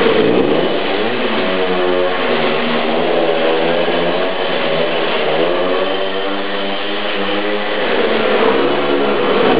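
Moped engine held at high revs during a sidecar burnout, its pitch rising and falling repeatedly without letting up.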